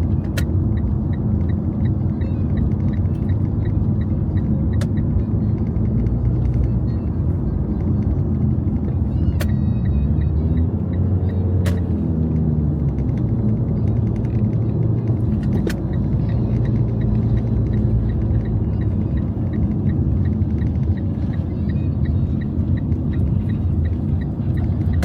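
Car engine and road noise heard inside the cabin while driving, a steady low rumble whose engine note rises and falls about ten to thirteen seconds in, with a few sharp clicks.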